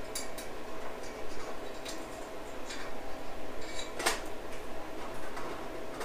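Small metal seat-latch parts from a Suzuki SV650 clicking and clinking against a steel seat tray as they are handled and fitted, with one sharper click about four seconds in. A steady low hum runs underneath.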